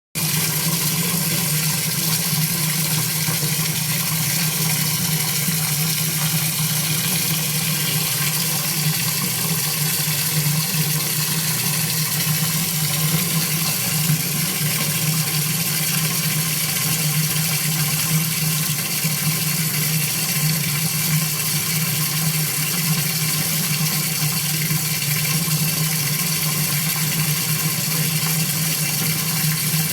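Shower running at full, heavy flow: a steady rushing spray of water with a low, even rumble beneath the hiss.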